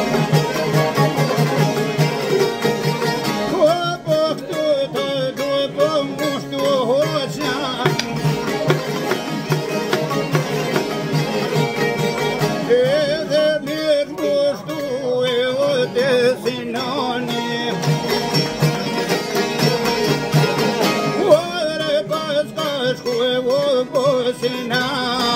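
A man singing an Albanian folk song to his own playing on a long-necked plucked lute. His wavering, ornamented sung phrases come in three times, between stretches of the lute playing alone.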